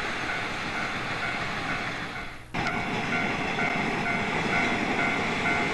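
Passenger trains running past on an electrified line: first the 14-series sleeper coaches behind an EF81 electric locomotive, then, after an abrupt cut about two and a half seconds in, a 485-series electric express train.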